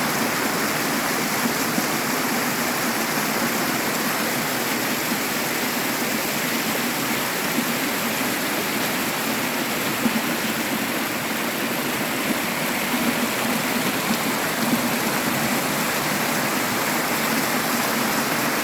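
Waterfall rushing: a steady, loud sound of falling water.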